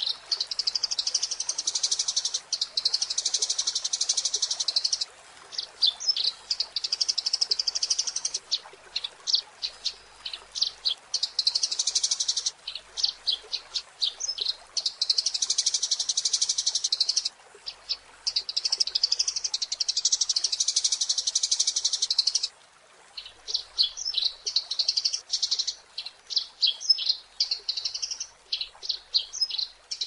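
Eurasian tree sparrows chirping without pause: stretches of fast, dense chattering a few seconds long alternate with runs of separate sharp, high chirps.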